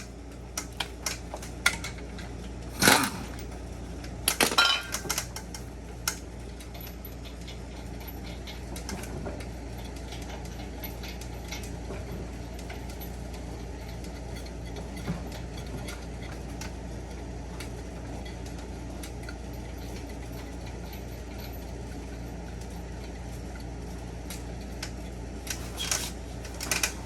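A few metallic clicks and two sharp knocks, then a steady low whir with a faint even pulse. This is a front wheel hub of a 2008 Toyota 4Runner spinning freely on new brake rotors and pads, running smooth with no sign of the earlier warped-rotor shake.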